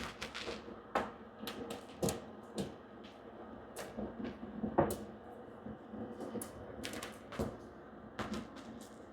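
Irregular small plastic clicks and taps from handling a DDR5 RAM stick at a motherboard's memory slot and working its latches.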